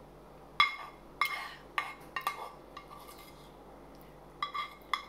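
A spoon clinking and scraping against a metal frying pan as soup is scooped from it. There are about five clinks in the first three seconds and two more near the end, each with a brief metallic ring.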